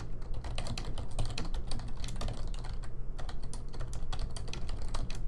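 Typing on a computer keyboard: a rapid run of key clicks with brief pauses as a sentence is entered.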